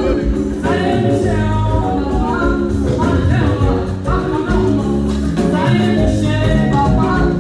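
Church choir singing a praise song over live amplified band accompaniment, with a steady bass under the voices.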